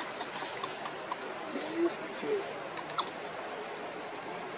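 Insects droning in a steady high continuous band, with two short squeaks about two seconds in.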